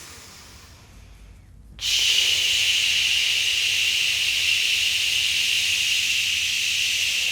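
A person's long, controlled breath out, hissing steadily through the lips. It starts about two seconds in and runs for about five seconds before tapering off.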